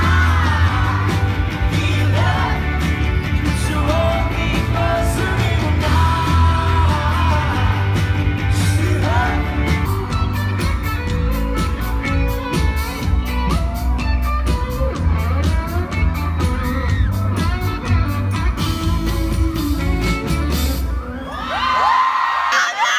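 Live band playing loud: electric guitar, bass and drums with singing. The song ends near the end and the crowd screams and cheers.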